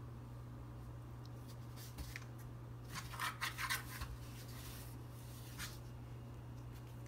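A cat moving inside a cardboard box, its claws and body scraping and rustling against the cardboard in a quick cluster of short scratchy scrapes through the middle, over a faint steady low hum.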